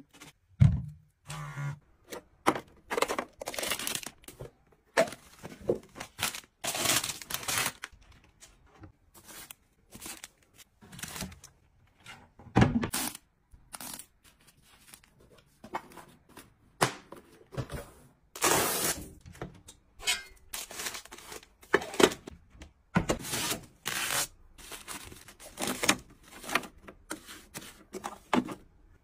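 Close-up handling sounds: packaging rustling and tearing, mixed with irregular taps and knocks of items being picked up and set down.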